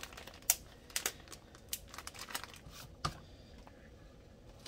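Clear plastic wrapper around a wax melt cake crinkling as it is handled: scattered sharp crackles, the loudest about half a second in, with others about a second and three seconds in.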